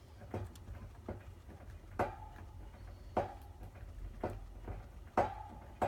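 Guinea pig chewing hay: crisp crunching clicks at an uneven pace, about one or two a second. A few of the clicks are sharper and leave a short ringing note behind them.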